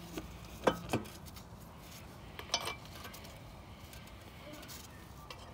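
Three short metal clinks on a steel lawn mower deck as the last engine mounting bolt is handled, the first two close together and the third a moment later.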